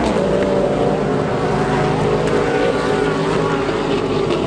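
Several race car engines running at once, their pitches shifting slightly as they go.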